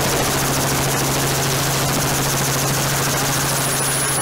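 Helicopter noise heard from aboard the aircraft: a steady drone with a fast, even rotor chop. A thin high whine comes in near the end.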